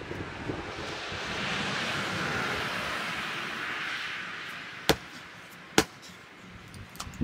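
A soft rushing noise swells and fades, then two sharp wooden knocks about a second apart as a firewood round is handled and set on the chopping block.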